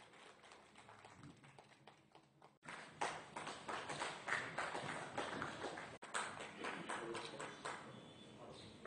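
Faint sound of a gathering in a hall: indistinct voices with a run of sharp taps and claps. It breaks off abruptly twice at edits, about two and a half seconds in and again near six seconds.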